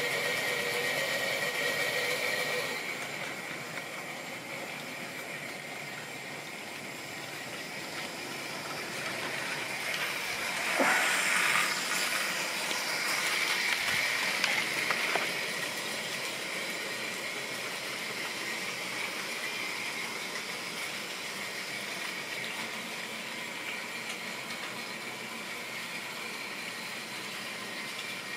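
Model railway train running on the layout's track: a steady whir of the motor and wheels on the rails. It is louder for the first couple of seconds and again in the middle, with a sharp click about eleven seconds in.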